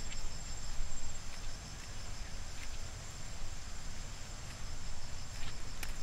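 Insects chirring steadily in a high pitch, one layer pulsing fast, with a couple of footsteps on a dirt path near the start and end.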